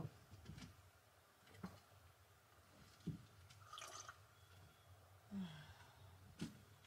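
Near silence in a small room, with a few faint soft knocks and a quiet slurp of a hot drink being sipped from a mug about four seconds in.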